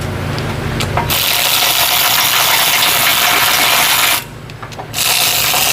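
Pneumatic hand tool running on a suspension bolt in two bursts, a long one of about three seconds and then a shorter one of about a second, with a loud rush of exhaust air.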